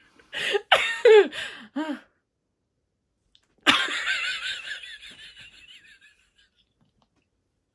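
A woman laughing: a short run of laughing sounds, then after a pause a sudden high-pitched shriek of laughter that trails away over a couple of seconds.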